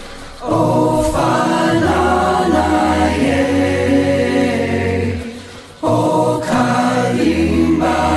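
Background music: a choir singing chant-like phrases over a low held note, with short breaks between phrases about half a second in and just before six seconds.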